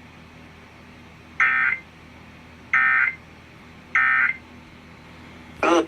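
Emergency Alert System end-of-message data tones: three short, loud bursts of warbling digital tones about a second and a quarter apart. They signal the end of the Amber Alert broadcast. Another brief sound cuts in right at the end.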